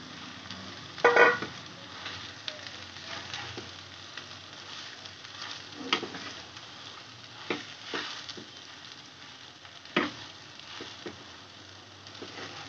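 Wooden spatula stirring and mashing boiled potatoes into sautéed onions in a kadai, over a light sizzle, with several sharp knocks of the spatula against the pan, the loudest about a second in.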